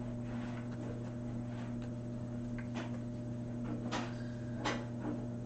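A few faint clicks and taps from handling the jewelry organizer stand, over a steady low hum.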